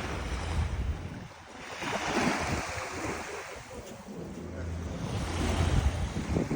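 Sea waves washing in and breaking, swelling and easing in surges about every few seconds, with wind buffeting the microphone in a low rumble.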